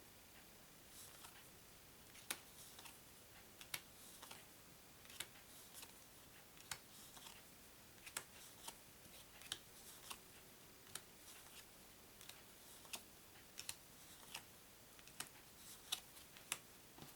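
Plastic-coated playing cards being laid down one at a time on a table, a light sharp snap or tap about once a second, over faint room tone.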